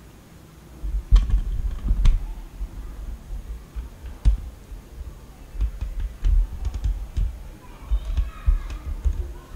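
Handling noise as a USB cable is plugged into a laptop and the phone camera is moved: a few sharp plastic clicks, two of them loud about a second and two seconds in, over repeated low thumps.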